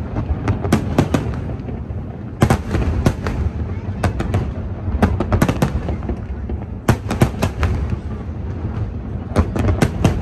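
Fireworks going off in a display: clusters of sharp bangs and cracks every second or two, over a continuous low rumble.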